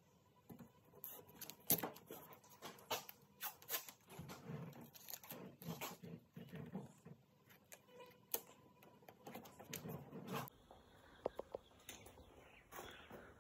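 Masking tape being pulled off the roll and pressed along an aluminium boat's gunwale: faint, irregular crackling rips, taps and handling clicks. They stop about ten seconds in, leaving a few scattered clicks.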